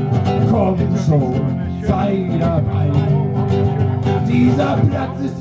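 A man singing to his own strummed acoustic guitar, a live unplugged performance.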